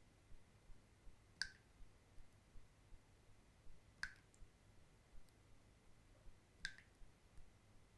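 Water dripping slowly from a bathtub faucet: three single drops land about two and a half seconds apart, each a short plink with a brief ringing tone.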